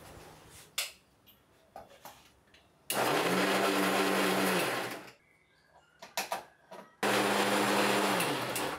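Bajaj mixer grinder blending a smoothie in its steel jar, run in two pulses of about two seconds each, the motor spinning up to a steady whir and winding down each time. A few light knocks come in the quieter stretches between.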